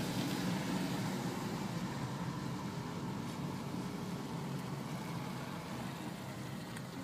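Steady running noise of a car driving in slow traffic, heard from inside the cabin: engine and tyre noise, easing slightly quieter over the seconds.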